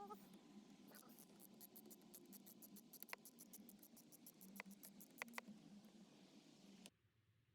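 Faint, fast, even clicking of a hand ratchet, about seven or eight clicks a second with a few louder clicks, as a screw is tightened with a Phillips socket bit. The sound cuts off abruptly about seven seconds in.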